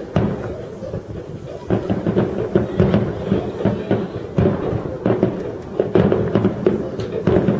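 Aerial firework shells bursting in quick succession, sharp booms about every half second to second with crackling between them.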